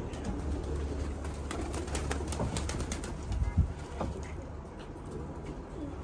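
Doves cooing softly over a low, steady rumble.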